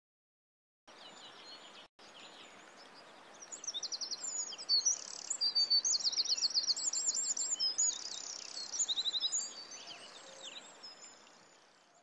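Songbirds singing, several at once, with rapid high trills and chirps over a faint steady hiss. The song starts about a second in, is thickest in the middle and fades out near the end.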